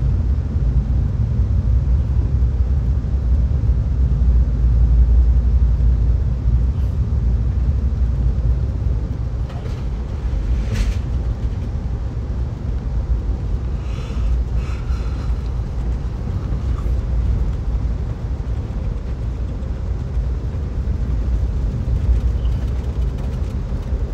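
Steady low rumble of a moving passenger train car heard from inside, the wheels rolling on the rails. A brief sharp click comes near the middle, followed a few seconds later by a faint high-pitched tone.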